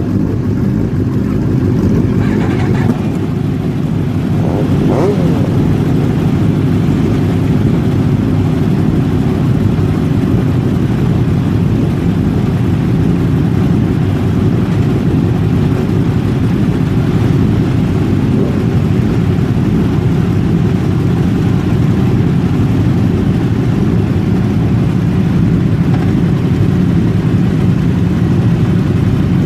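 Powerful engines running with a deep, steady rumble.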